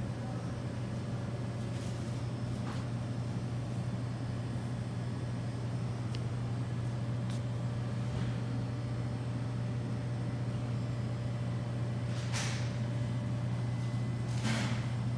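Steady low hum of a shop's room tone, with a few faint clicks and two brief rustles near the end.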